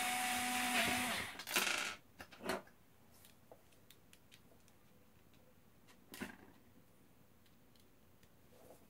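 Meister cordless electric screwdriver running with a steady whir as it drives a screw into the metal frame of an Xbox One disc drive, stopping about a second in. A few sharp clicks and knocks of the tool and metal parts being handled follow, the last about six seconds in.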